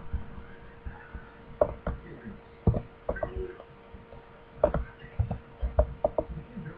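Computer mouse clicks and keyboard key presses at irregular intervals, made while drawing lasso selections and deleting them, over a faint steady electrical hum.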